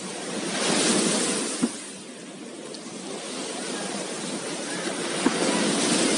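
Sea waves washing onto a beach, the surf swelling twice, with two small sharp knocks, one near the start and one near the end.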